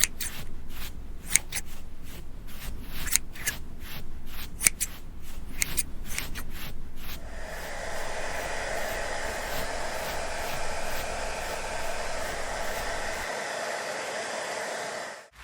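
Rapid, irregular sharp clicks or snips for about seven seconds, then a steady whirring motor-and-air noise that cuts off just before the end.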